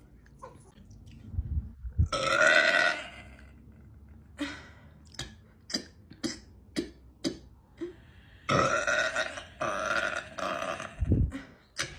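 A young woman burping loudly: one burp about two seconds in, then a run of short sharp clicks in the throat, then a longer burp lasting about two seconds near the end.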